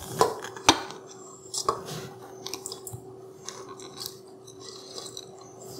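Sugar being poured and scraped into a stainless steel mixer bowl: soft grainy rasping and scraping with a few small clicks, over a faint steady hum.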